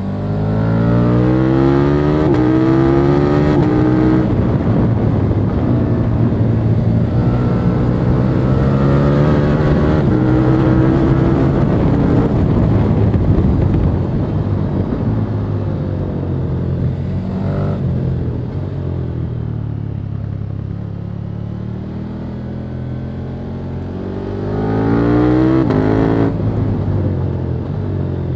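2021 KTM 1290 Super Duke R's V-twin engine on its stock exhaust, heard from the rider's helmet: revs rising under acceleration and dropping back at the gear changes, easing off for a long stretch in the middle, then climbing again near the end, over wind rush.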